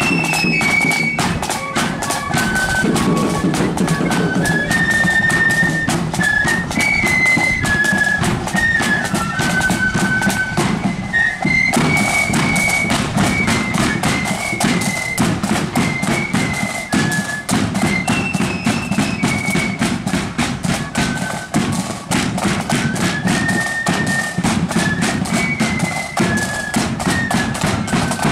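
Marching flute band playing a tune: massed flutes carry a high melody over steady drumbeats, the big bass drum among them.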